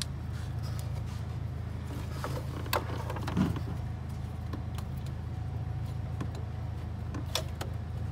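A steady low hum under a few light metallic clicks and knocks from hands and tools working around the serpentine belt and pulleys in the engine bay.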